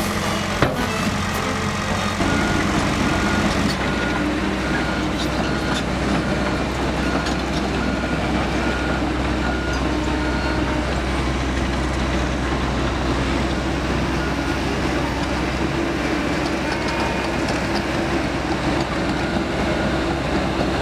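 Diesel engines of heavy earthmoving machinery, excavators and a telehandler, running steadily. A reversing alarm beeps about twice a second for several seconds, starting about two seconds in.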